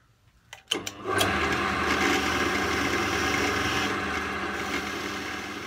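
A couple of clicks, then a benchtop pillar drill's motor starts about a second in. It runs steadily, spinning a Scotch-Brite abrasive wheel in its chuck.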